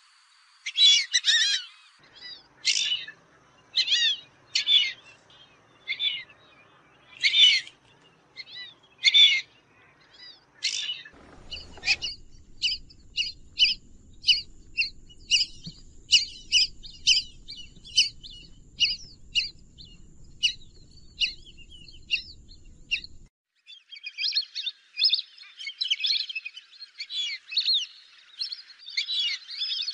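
Fulvous whistling ducks whistling: separate high, squeaky calls about once a second, then a quicker run of short whistles, and from near the end many birds calling over one another. The sound changes abruptly twice where different recordings are joined.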